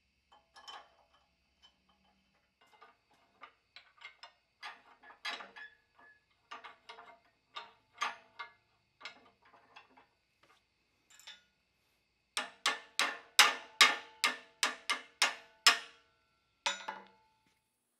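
Steel parts of a blacksmith's post vise clinking and clanking as it is fitted to its mounting bracket on a steel stand, then a hammer striking the bracket eight times in quick succession, about two blows a second, each ringing, with one more blow near the end.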